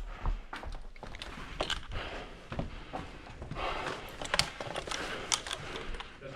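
Footsteps and gear rustle of players moving through a small room, with scattered sharp clicks and knocks at uneven intervals.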